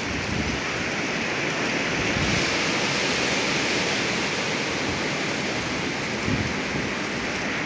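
Strong windstorm wind rushing steadily through the surroundings, a continuous hissing roar with no thunder or rain driving it.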